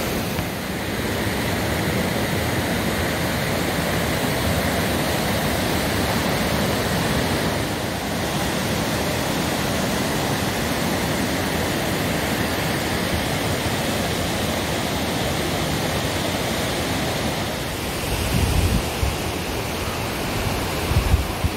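Fast mountain creek rushing over rocks, a steady, even sound of water running high with snowmelt. A few low thumps come in near the end.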